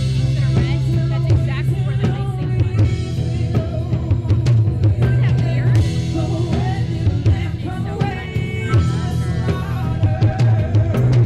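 Live band playing an amplified song: drum kit, guitars and keyboard under a woman's lead vocal, with a steady bass line and a driving beat.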